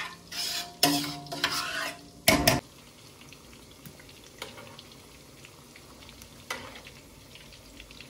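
A spoon stirring tomato sauce in a large stainless-steel stockpot, scraping and clinking against the metal. About two and a half seconds in it cuts off abruptly to a much quieter, steady sizzle of meatballs searing in oil in a cast-iron skillet, with a few light clicks as a spoon turns them.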